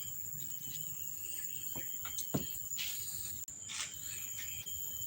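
Insects trilling steadily in a high, continuous drone, with a few short clicks and knocks about two to four seconds in.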